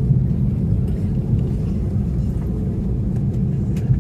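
Steady low rumble inside the cabin of an Airbus A321neo airliner during its landing, with a few faint clicks.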